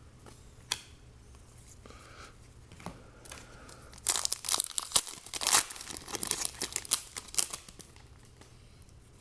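Foil trading-card pack wrapper torn open and crinkled by hand: a few seconds of crackling that start about four seconds in.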